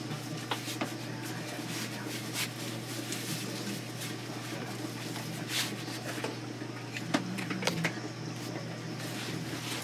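Cloth rustling with small scattered knocks as a necktie is put on and handled, over a steady low hum.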